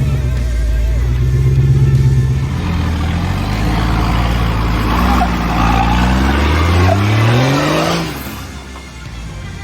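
Four-wheel-drive vehicle's engine running under load, then revving up in a steady rising whine over a few seconds before cutting off suddenly about eight seconds in.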